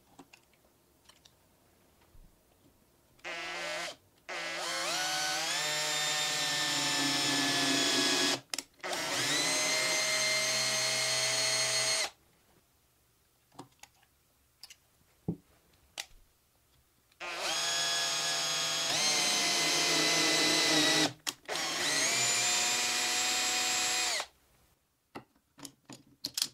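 Small hand-held electric drill boring into a plywood block in two long runs. Each run starts with a rising whine as the motor spins up, then holds a steady pitch, and the first run stops briefly twice. A few light clicks follow near the end.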